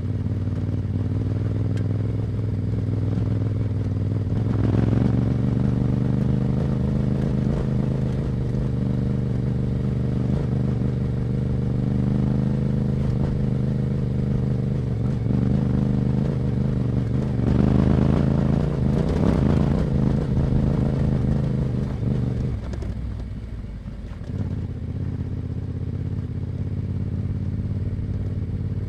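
Yamaha Ténéré 700's parallel-twin engine through an Akrapovič exhaust, running under way with the throttle opened up twice. About three-quarters of the way through it is eased off and settles to a lower, quieter note.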